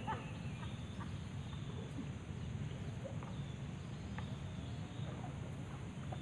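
Outdoor ambience of insects and birds: short chirps and calls scattered through, over a steady low rumble.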